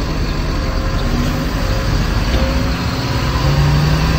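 BharatBenz 2523 lorry's diesel engine running at low speed, heard from inside the cab: a steady low rumble, with a low engine note growing stronger near the end.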